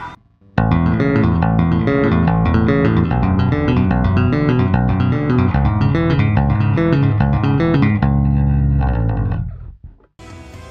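Fender Jazz Bass played with two-handed tapping through the Boss GT-1B's D-Comp compressor: a fast, even run of notes. Near the end it settles on a held note that dies away.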